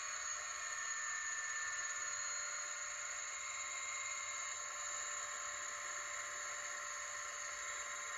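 Sound decoder of an N scale Fleischmann NS Class 1600 electric locomotive model playing its standing-still sound: a steady hiss with a few held tones over it and almost no bass, as from the model's tiny speaker.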